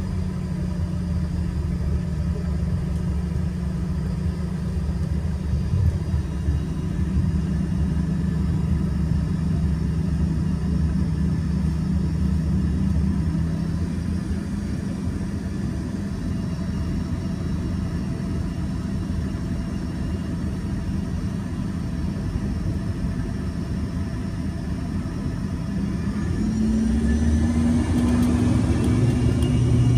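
Embraer ERJ-145's rear-mounted Rolls-Royce AE 3007 turbofans heard from inside the cabin, running with a steady hum during the taxi onto the runway. Near the end they spool up for takeoff, with a rising whine and growing louder.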